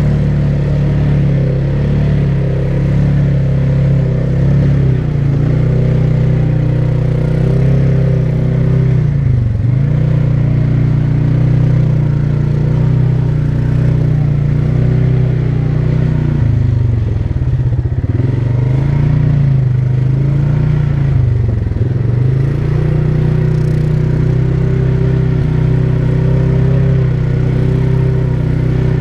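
ATV engine running steadily while riding. Its pitch drops and picks back up a few times as the throttle is eased and reopened.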